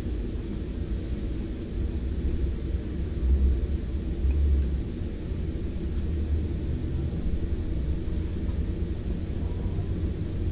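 Virginia Railway Express Gallery IV bilevel trailer car rolling along the track, heard inside from an upper-deck seat: a steady low rumble. It swells louder twice, about three and four and a half seconds in.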